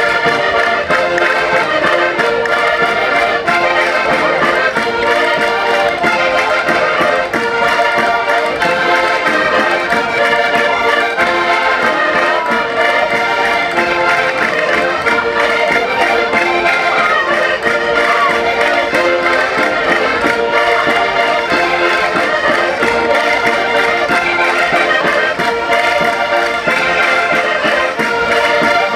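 Several concertinas playing a lively chula, a traditional Portuguese folk dance tune, loud and unbroken.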